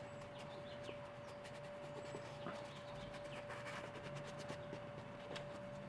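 Faint handling sounds of a pre-moistened lens cleaning wipe being rubbed over a camera lens, with scattered light clicks, over a steady faint high tone.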